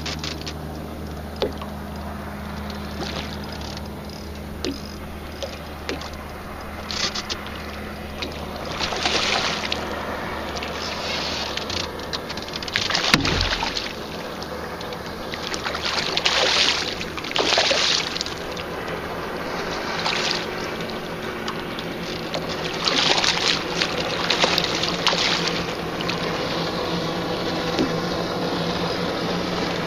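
Water splashing in short bursts beside a small boat as a hooked largemouth bass thrashes at the surface, over a steady low hum. One dull knock about halfway through.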